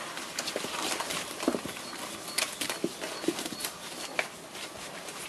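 Kishu Ken puppies squeaking and grunting a few times as they push in to nurse, with newspaper bedding rustling and crackling under them.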